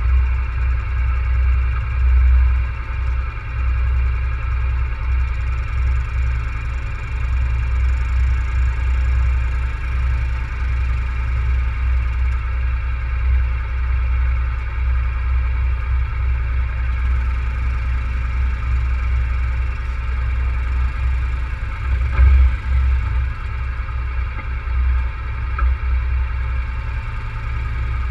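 ATV engine running steadily at low speed while the quad wades through deep water, with a brief louder surge about three quarters of the way through.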